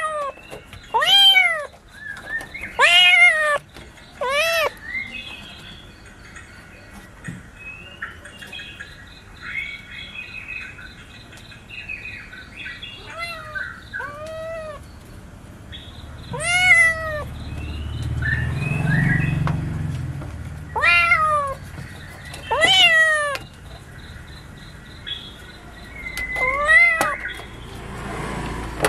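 Kittens meowing over and over, about ten short high-pitched meows that each rise and fall in pitch. A low rumble comes up briefly about two-thirds of the way through.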